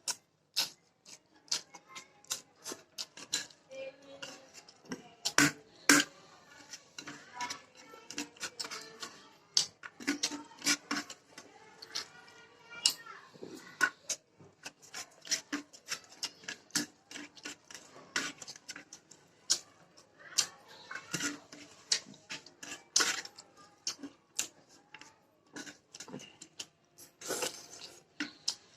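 Close-up mukbang eating sounds: chewing soft food (chicken, rice and chapati in gravy) with wet mouth smacks and irregular clicks, several a second and some much louder than others.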